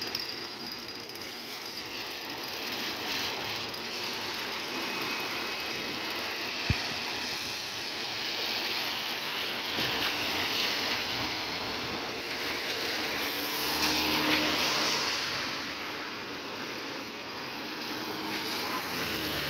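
Cars passing on a rain-soaked road, their tyres hissing on the wet pavement, the noise swelling as each goes by and loudest about two-thirds of the way through. A single sharp knock about a third of the way in.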